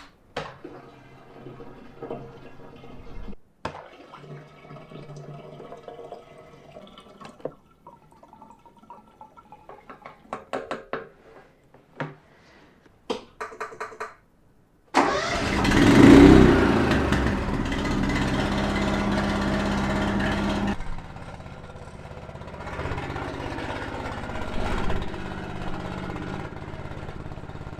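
Scattered knocks and clicks of handling, then about halfway through the Honda HSM1390i snowblower's 389 cc Honda iGX390 engine starts suddenly and runs steadily. A few seconds later its level drops and it keeps running more quietly: a cold engine being left to warm up.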